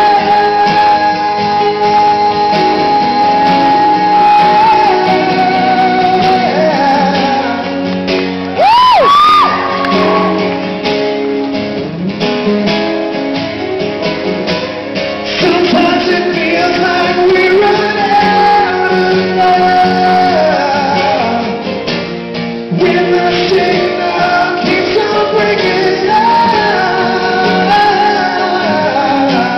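Live acoustic song: two acoustic guitars strumming chords under a male voice singing long wordless "oh" lines, with a held note at the start and a loud upward-sweeping wail about nine seconds in.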